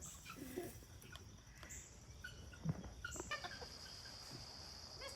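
Chickens clucking faintly, a few short scattered calls.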